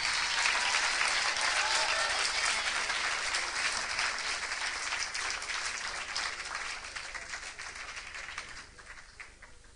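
Audience applauding, steady at first and then dying away over the last two seconds or so.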